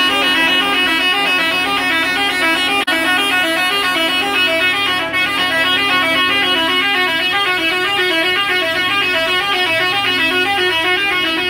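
Several semi-truck horns held down together in a continuous loud blare, the protest honking of passing trucks, with a brief drop about three seconds in.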